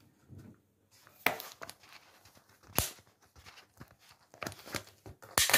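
Separate clicks and knocks of cookware being handled on a gas stove top, with light rustling between them. There is a sharp knock about halfway through and a quick cluster of knocks near the end.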